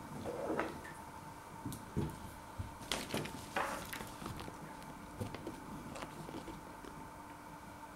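Handling noise from a food packet being picked up and held up: a few soft rustles and knocks in the first four seconds, then quieter, over a faint steady hum.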